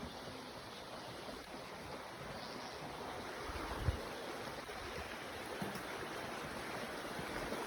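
Steady rushing of a creek flowing, with one short low thump about four seconds in.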